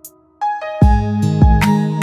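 Background music: a soft, sustained passage gives way about half a second in to a loud beat, with deep kick-drum hits about two-thirds of a second apart.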